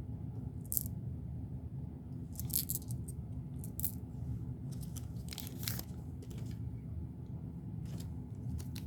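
Beads and their small plastic packaging being handled: short crinkles and clicks come every second or two over a steady low hum.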